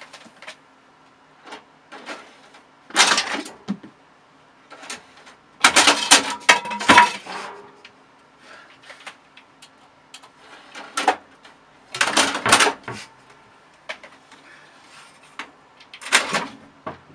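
A cat scrambling and clawing at a curtain and the side of a computer tower: about five bursts of rattling and knocking, the loudest six to seven seconds in.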